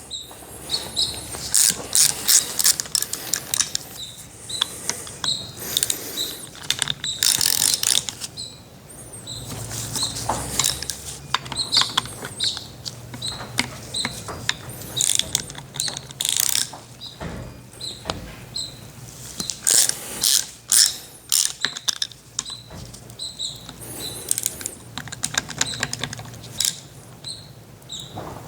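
Hand tools working on the steel gland end of a hydraulic slewing cylinder: irregular metallic clicks, taps and scrapes as the gland collar is worked loose.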